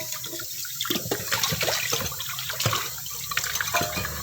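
Tap water running into a kitchen sink, with a few short clinks.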